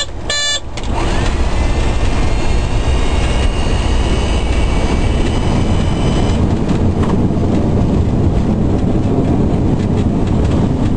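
Boeing 727-200 flight deck noise during the landing roll: a loud, steady rumble from the airframe and its three Pratt & Whitney JT8D turbofans, with an engine whine that rises about a second in and holds until about six seconds in. Two short beeps sound at the very start.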